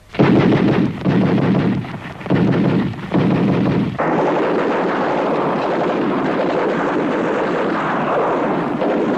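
Artillery shell explosions: four heavy blasts in quick succession over the first four seconds, each dying away, then a steady, dense rumble of continuing fire.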